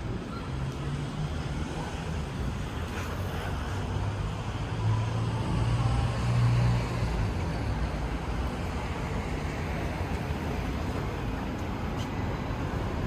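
Street traffic noise, with a vehicle's engine hum swelling and passing about five to seven seconds in.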